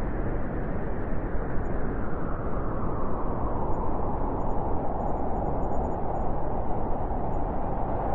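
Blizzard wind blowing hard in a steady, deep rush, with a howling note that grows stronger from about three seconds in.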